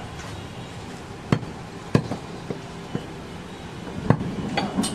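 Large butcher's knife chopping goat meat on a round wooden log block: a handful of sharp, irregular knocks, the loudest about four seconds in.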